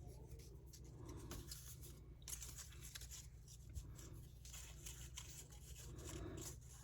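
Faint rustling and light clicks of paper being handled, over a low steady hum.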